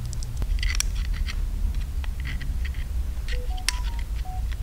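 Small metal parts of a billet aluminium oil pump being handled: light clicks and short scrapes as the pieces are turned over and picked up. A steady low hum runs underneath, and a few short high tones sound near the end.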